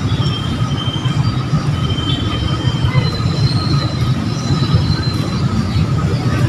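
A traffic enforcer's whistle blowing several drawn-out high blasts, each about a second long, over a steady low rumble of street traffic.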